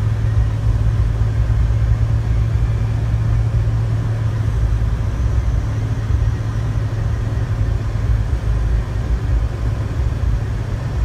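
Car driving on a snow-covered road, heard from inside the cabin: a steady low drone of engine and tyre noise with a rumble underneath.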